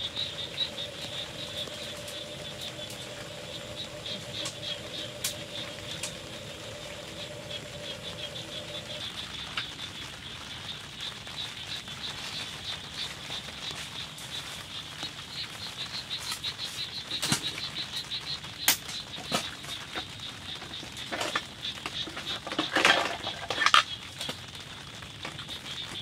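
Rain pattering steadily on a tent, with a fast, high pulsing trill throughout. A low hum stops about a third of the way in, and several sharper taps and rustles come in the second half.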